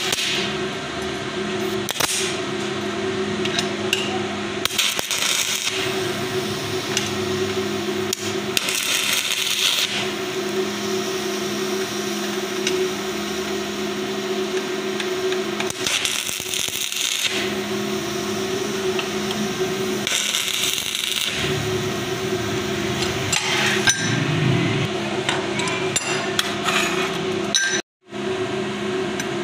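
Stick-welding arc crackling and sizzling as a welding rod is run along steel, swelling louder in several spells, over a steady electrical hum. The sound cuts out for a moment near the end.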